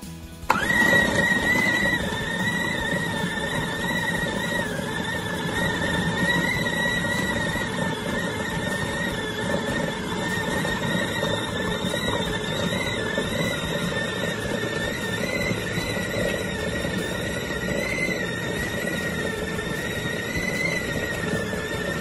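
Braun CombiMax 600 food processor motor switched on about half a second in, then running steadily with a high whine while grinding beef into a smooth meatball paste.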